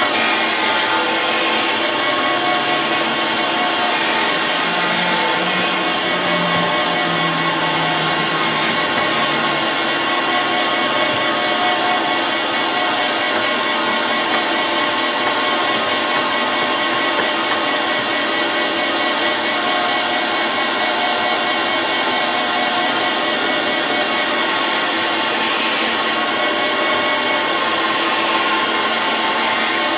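Surface grinder running with a steady hiss and a constant whine, its wheel grinding steel wood chipper blades flat.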